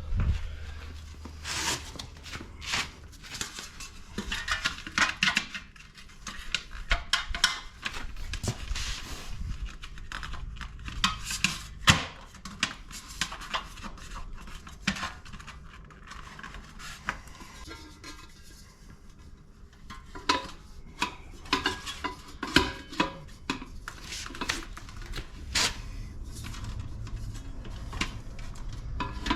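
Light aluminium hubcap being handled and clipped onto a wheel: a long run of sharp metallic clicks and clinks, with one louder knock about twelve seconds in and a quieter stretch a little later.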